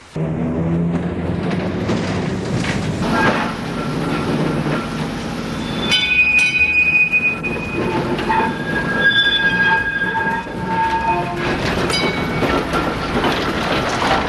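Heritage electric tram running on its rails, with its wheels squealing in several long, high tones from about six seconds in.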